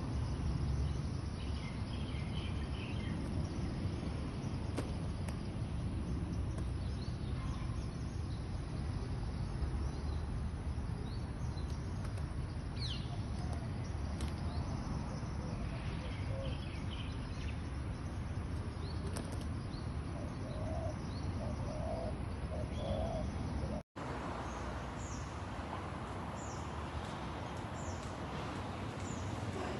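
Faint, scattered bird chirps over a steady low rumble of outdoor background noise. The sound drops out completely for an instant about 24 seconds in.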